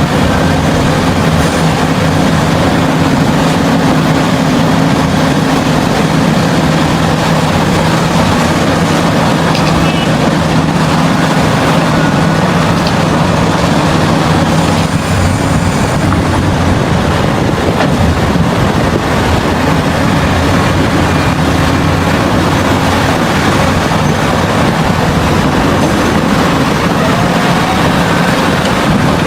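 Heavy diesel mining machinery running loudly and steadily. A steady engine tone stands out in the first half and fades out about halfway through.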